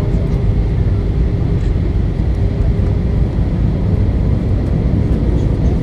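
Airbus A319 cabin noise in flight, heard from a window seat over the wing: a steady low rumble of engines and airflow. A faint steady tone fades out about halfway through.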